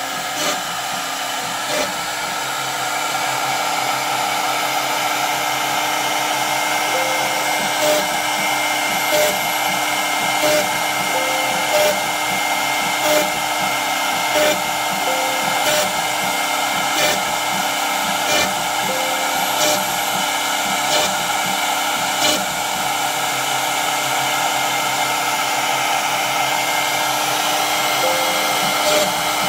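Spindle of a Rovo 750×1000 CNC router running with a steady whine as its small bit cuts a grid of holes into a wooden board. A short sharp sound comes regularly, about every 1.3 seconds, as the bit plunges each hole and the head steps to the next.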